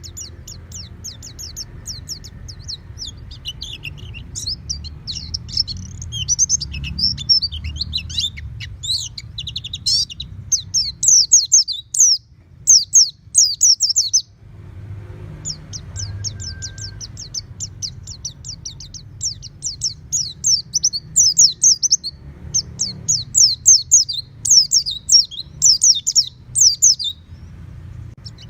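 White-eye (pleci) singing a long, rapid twittering song of high chirps, with a brief pause about halfway through. A low rumble runs underneath.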